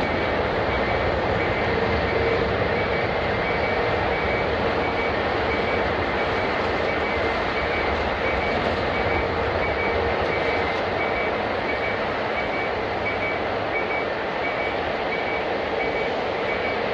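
Steady jet airliner engine noise at an airport, with a short high beep repeating at even intervals throughout.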